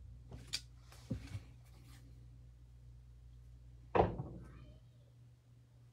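A few light knocks, then a louder thump about four seconds in that dies away over about a second, over a steady low hum.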